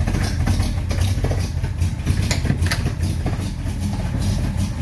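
1953 Chevy 3800 truck's straight-six engine running roughly, with an uneven, irregular beat over a steady low hum. The owner puts the poor running down to too much choke.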